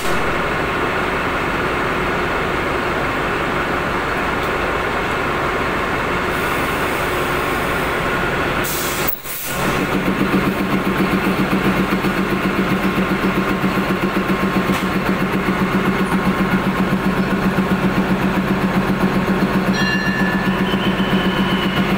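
Alsthom AD24C diesel-electric locomotive idling steadily. After a brief dropout about nine seconds in, it comes back louder with an even throb.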